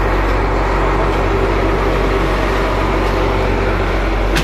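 Fishing trawler's engine running steadily, a loud, unchanging low drone, with one short sharp knock near the end.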